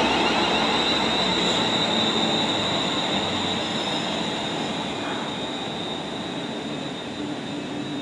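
London Northwestern Railway Class 350 electric multiple unit running out along the platform: a steady high whine over wheel noise on the rails, growing fainter as the train moves away.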